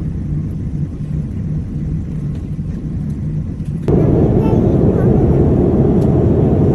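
Airliner cabin noise heard from inside the cabin: a steady low rumble with a hum. About four seconds in it cuts abruptly to a louder, fuller rush.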